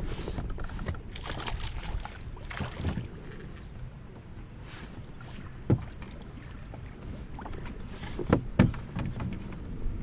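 Wind and water noise around a small fishing boat, with a few sharp knocks: one about halfway through and two close together near the end.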